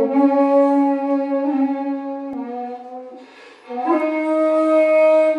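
Solo shakuhachi playing long held notes in the Nezasa-ha Kinpū-ryū honkyoku style. A sustained low note drops slightly about two seconds in and fades into breathy air noise. Then a new, higher note swells in about four seconds in and is held.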